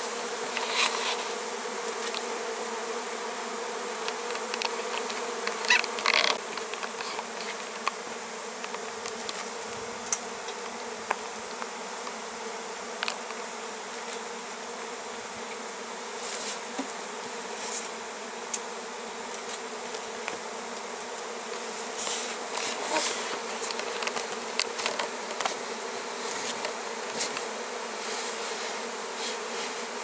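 A large number of honeybees from a disturbed feral colony buzzing in a dense, steady hum, with scattered short knocks and taps throughout.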